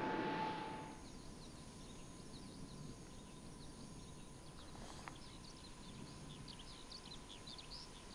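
Jet airliner engine noise fading out in the first second, leaving faint outdoor ambience with many short, high bird chirps that grow busier toward the end.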